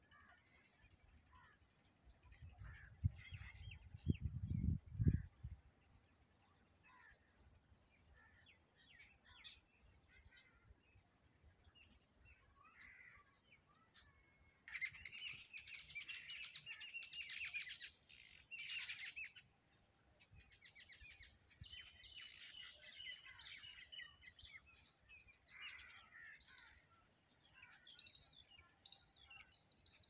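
Small birds chirping and singing in bushes and reeds, with scattered calls throughout and a loud, dense spell of rapid chirping and trilling about halfway through that lasts a few seconds. A few seconds in, low rumbling on the microphone briefly drowns everything else.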